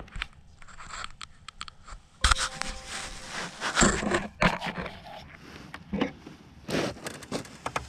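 Scraping and crunching handling noise as the camera is moved and set down on snow-covered ice, in irregular bursts with a few sharp knocks.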